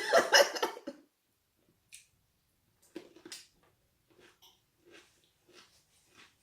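A person chewing food close to the microphone, with short soft chews about every half second to second. A voice trails off in the first second.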